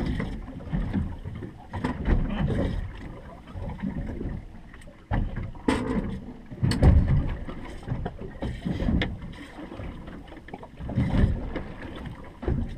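Open fishing boat at sea: uneven low rumbling of wind on the microphone and water against the hull, with no engine running, broken by a few sharp knocks.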